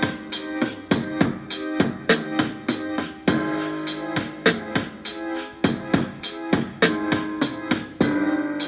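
A drum-machine beat sequenced on an Akai MPC Live from its stock sounds, playing back: a steady pattern of drum hits under held keyboard chords.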